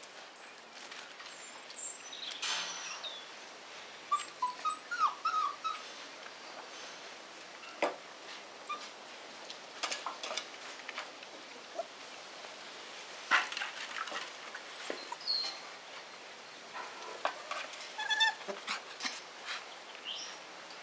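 Five-week-old Tervueren puppies giving a few short whimpers and yips while they play, with scattered sharp knocks and clatters of loose wooden boards on paving as they climb and step on them.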